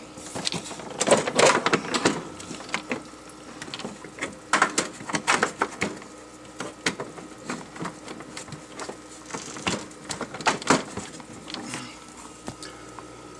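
Handling noise around an unplugged aquarium hang-on-back filter: irregular plastic clicks, knocks and rustles, with louder clusters about a second in and again around four to five seconds in. A faint steady hum runs underneath.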